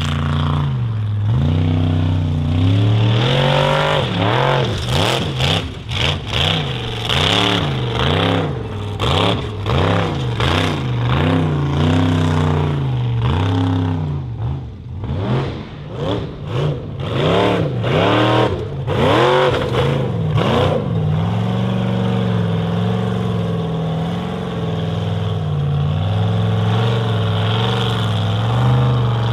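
Formula offroad competition buggy's engine revving hard, its pitch rising and falling again and again, about once a second. For the last several seconds it runs more steadily at high revs.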